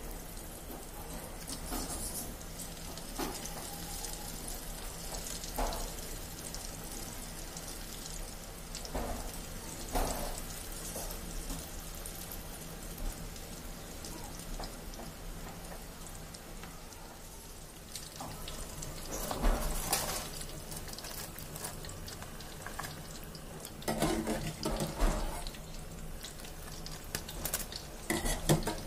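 Spinach and potato pakoras deep-frying in hot oil: a steady sizzle, with a few short knocks of a utensil or pan now and then, a cluster of them near the end.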